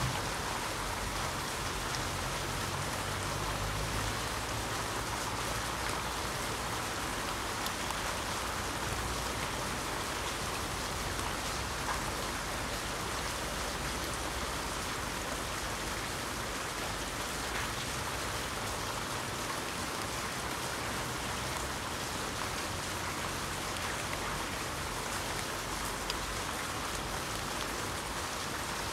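Steady heavy rain falling, an even hiss of rain on the ground and surfaces.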